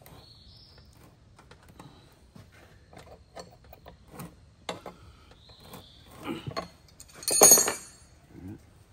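Hand wrenches snugging up the nuts on a ride-on trowel arm held in a steel jig: scattered small metal clicks and taps, with a louder metallic clatter about seven and a half seconds in.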